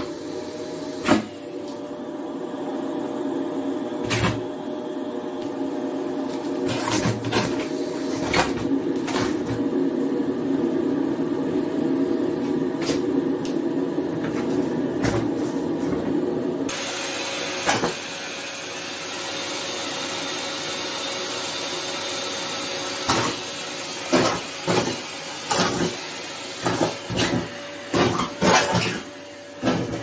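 Vacuum cleaner running, its hose nozzle sucking latex gloves off a laminate floor: a steady hum with scattered clicks, changing suddenly to a brighter hiss a little past halfway. From about three-quarters in come a string of loud, short bursts as gloves are pulled into the nozzle.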